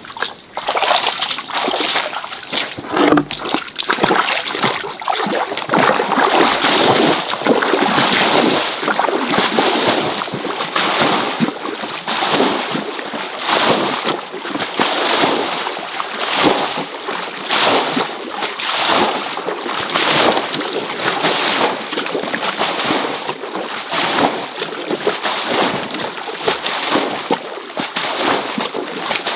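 Stream water being splashed and sloshed over and over, a long irregular run of splashes. A high steady whine in the background stops about six seconds in.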